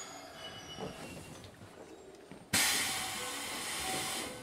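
Keikyu 1500 series electric train: a sudden burst of compressed-air hiss from its pneumatic system about two and a half seconds in, lasting under two seconds and fading, after a quiet stretch in the carriage.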